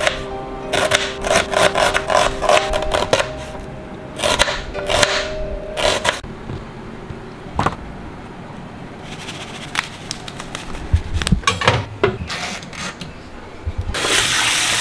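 Knife slicing through a red onion on a cutting board, a quick run of chops, then scattered clicks of handling; near the end, tap water running hard into a steel saucepan.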